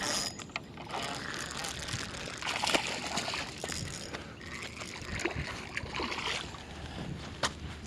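Water splashing and sloshing in irregular spurts as a small hooked bass is reeled in at the surface.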